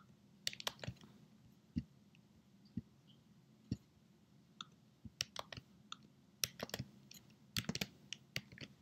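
Scattered computer keystrokes and clicks, several coming in quick clusters of three or four taps, over faint room hiss.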